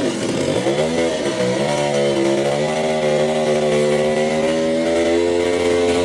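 Chainsaw running: its engine pitch dips about half a second in and climbs back, then holds steady at high speed.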